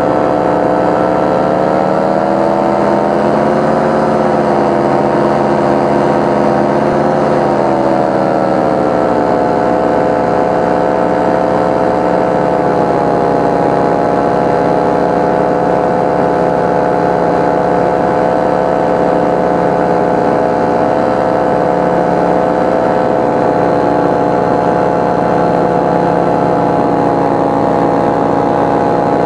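Paramotor engine and propeller of a powered paraglider running steadily in flight. Its pitch rises and dips a little a few seconds in, then holds steady.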